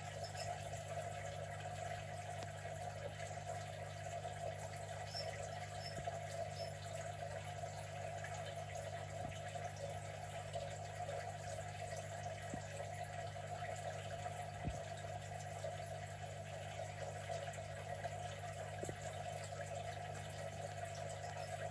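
A steady low machine hum with a rushing, water-like noise, like a pump running, and a few faint ticks.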